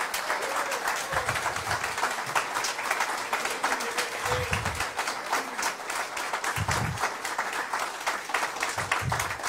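Audience applauding, a dense, steady clapping from a crowd.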